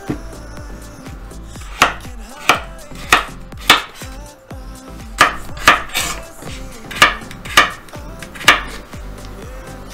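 Kitchen knife chopping a carrot into thin quarter-round slices on a wooden cutting board. About ten sharp knife strikes begin about two seconds in, roughly one every half second with short pauses.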